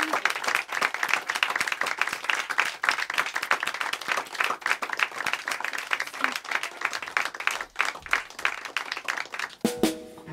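Audience applauding steadily, the clapping thinning out toward the end, as music with a guitar starts up just before the close.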